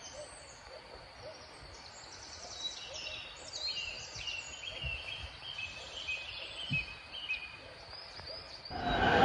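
Forest ambience of many birds chirping and calling, with a few lower calls under them. A loud rushing noise cuts in suddenly near the end.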